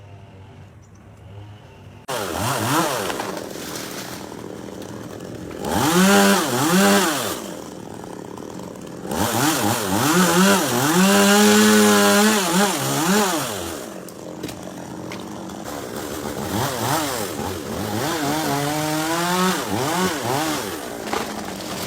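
Two-stroke chainsaw idling low, then throttled up suddenly about two seconds in. Its revs rise and fall several times and are held high for a few seconds at a stretch as it cuts into a tree.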